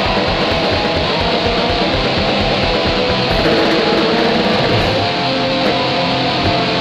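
Raw lo-fi black metal: a dense, steady wall of distorted electric guitar over fast drumming, with a muffled sound and little top end.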